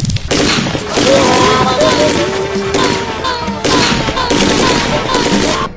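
Machine-gun fire for a prank: a long run of rapid shots that stops suddenly near the end.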